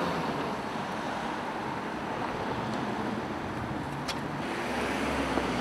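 City street traffic noise, a steady wash with wind on the microphone. There is a short click about four seconds in, and a low rumble builds near the end.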